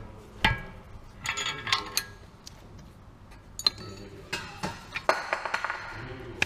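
Metal hand tools and parts clinking and knocking during work on a car's wheel hub, with short metallic ringing after some strikes. A sharp knock comes about half a second in, followed by scattered clusters of clinks.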